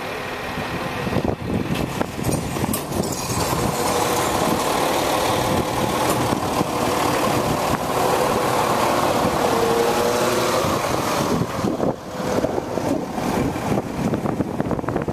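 Car engine running with tyre and road noise as the car drives slowly along a street, heard from inside the car.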